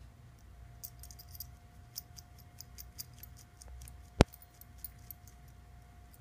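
Metal dog collar tags jingling in light, irregular clicks as the puppy moves about, with one sharp click about four seconds in.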